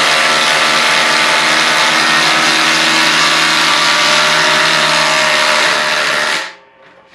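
Cordless impact driver hammering steadily as it drives a 4-inch lag screw into lumber through a 3/4-inch socket. It stops abruptly about six and a half seconds in.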